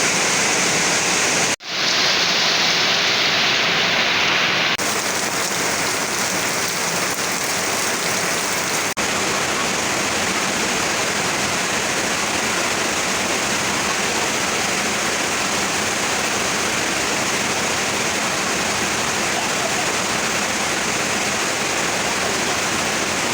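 Heavy rain pouring steadily, a dense, even hiss, with a brief dropout and a change of tone about two seconds in.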